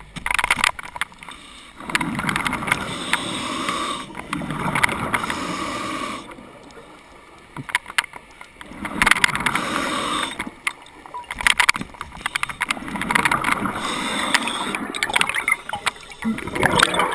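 Heard underwater: a scuba diver breathing through a regulator. Long bursts of exhaled bubbles gurgle and rush for a couple of seconds at a time, with quieter pauses between breaths and scattered sharp clicks.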